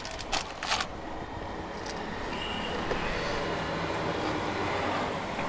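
Steady hum of road traffic and vehicle engines, with a couple of light clicks about half a second in.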